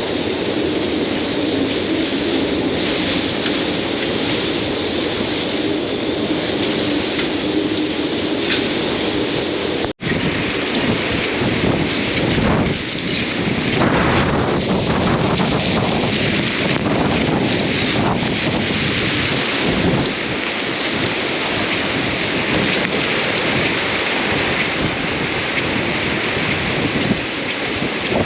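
Storm wind blowing at about 58 knots with heavy rain, a continuous loud rush buffeting the microphone. The sound drops out for an instant about ten seconds in, then carries on.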